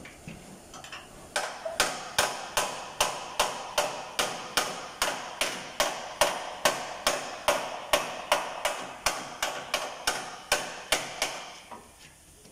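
Hammer striking the damaged steel front frame rail of a car again and again, about two or three sharp metallic blows a second. The blows start about a second in and stop near the end. This is collision damage being hammered straight in body repair.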